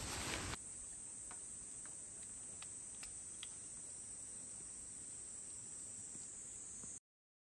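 Faint, steady, high-pitched chirring of insects, with a few light ticks in the first few seconds. It cuts off abruptly near the end.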